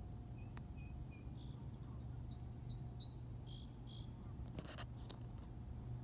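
A bird calling in a run of short, high chirps over a steady low background rumble, with a couple of sharp knocks about five seconds in.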